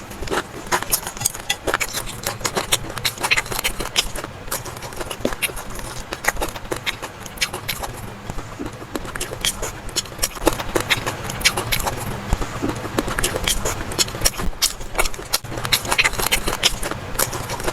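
Close-miked eating sounds: chewing and wet mouth clicks come in a quick, irregular run over a steady low hum.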